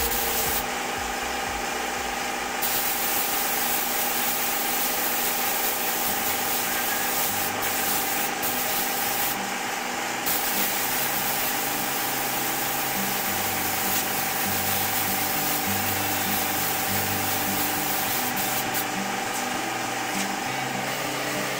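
Compressed-air paint spray gun hissing steadily as it sprays paint onto a car's body panels. A thin steady whine runs alongside it and stops near the end.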